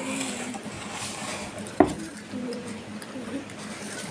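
Eating sounds with a utensil on a plate: one sharp tap about two seconds in, with faint voices in the background.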